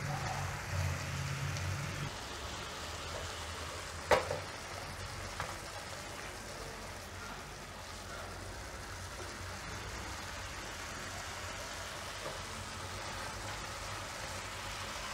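Sugar syrup simmering in a non-stick pan, a steady bubbling hiss. A single sharp knock about four seconds in, with a couple of faint ticks later.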